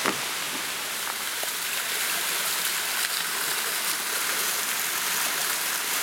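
Steady rush of a waterfall on a mountain stream, an even hiss of falling water, with one short knock right at the start.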